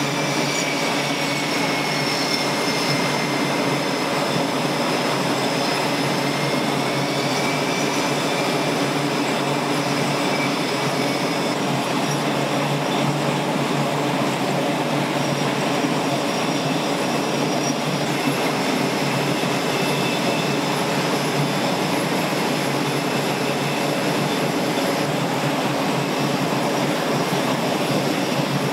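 Jet engines of F/A-18 Super Hornets running on a carrier flight deck: a steady, loud rush of noise with thin, high turbine whines that waver slightly in pitch and fade after about ten seconds.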